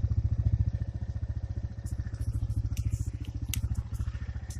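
Four-wheeler engine running with a steady, rapid low putter, with a few sharp cracks and clicks about halfway through.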